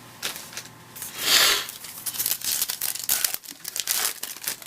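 A Bowman Platinum trading-card pack being torn open: one loud rip about a second in, then a run of irregular crinkling of the wrapper.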